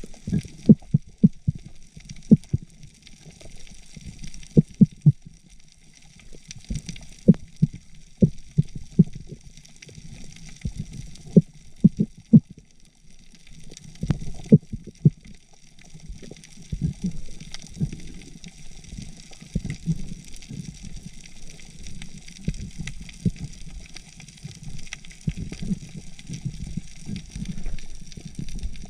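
Underwater sound picked up through a camera housing by a swimming spearfisher: irregular low knocks and thumps, most of them in the first half, then a steadier low rumble, over a steady hiss.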